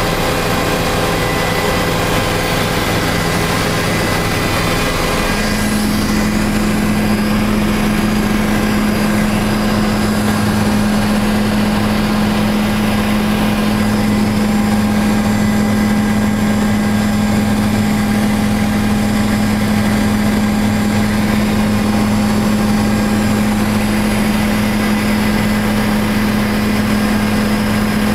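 Helicopter in flight heard from inside the cabin: a loud, steady drone of rotor and engine with several held tones. About five seconds in the tones shift and a strong low hum comes in, staying steady from then on.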